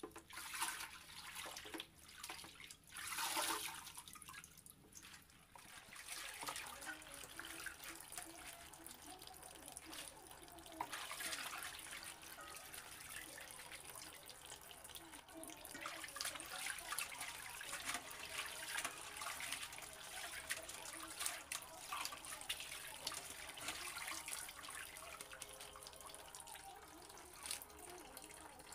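Water splashing and dripping as soaked raw potato slices are scooped out of a tub with a plastic strainer and left to drain, with scattered small splashes and clicks throughout.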